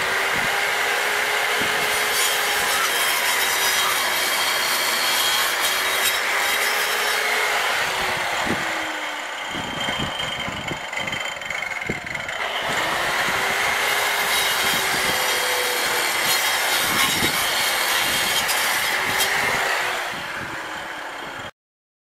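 DeWalt angle grinder cutting through a concrete block: a loud, steady grinding with the motor's pitch sagging under load as the disc bites and recovering. The cut eases for a few seconds in the middle, then goes on, and the sound stops suddenly just before the end.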